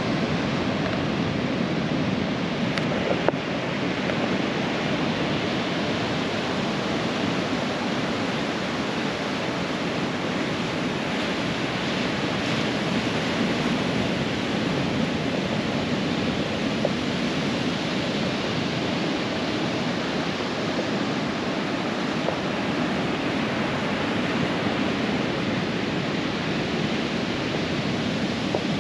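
Ocean surf breaking on a sandy beach: a continuous rush of waves that swells and eases slowly.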